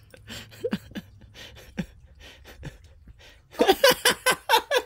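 A woman gagging and retching in disgust at the taste of cherry ice cream. Faint small sounds come first, then about three and a half seconds in a quick run of loud, short retching noises.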